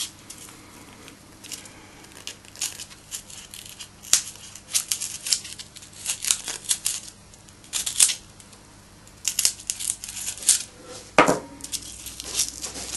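Irregular snips, scrapes and rustles of cutting a small eye recess into a squirrel's body form, with one louder thump about eleven seconds in.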